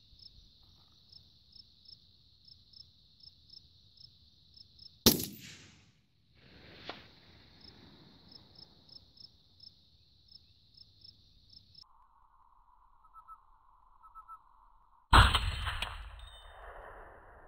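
.204 Ruger rifle fired twice, each a loud, sharp shot: one about five seconds in, the other about fifteen seconds in with a longer echoing tail. A fainter single crack follows the first shot by about two seconds. Crickets chirp steadily in the background between shots.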